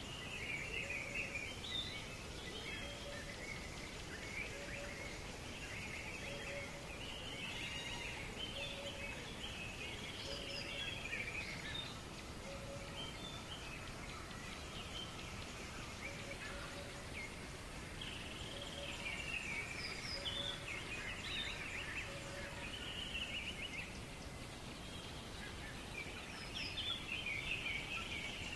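Songbirds singing in bouts of quick, chirpy high phrases over a steady outdoor background hiss. A short low note repeats about once a second through much of it, with a pause in the middle.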